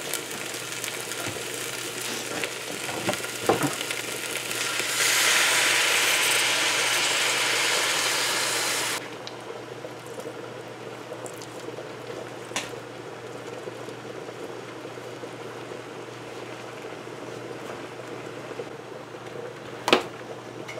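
Catahar (breadnut) frying in a pot, then coconut milk strained into the hot pot: about five seconds in, a louder steady rush of pouring and sizzling lasts about four seconds and stops abruptly. A quieter sizzle follows, with a couple of light clinks of metal.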